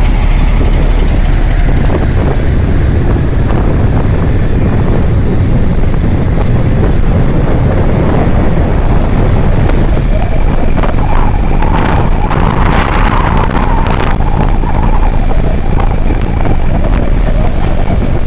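Wind rushing over the microphone of a Kawasaki Ninja 650 riding along a road, with the bike's parallel-twin engine running underneath. There is a louder, brighter stretch of noise about twelve seconds in.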